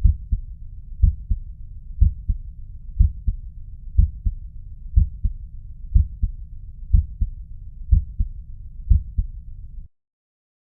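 Human heart sounds heard through a stethoscope: a steady beat of about one a second, each a strong first sound followed shortly by a softer second one. A continuous low rushing noise fills the gaps between beats. It cuts off abruptly near the end.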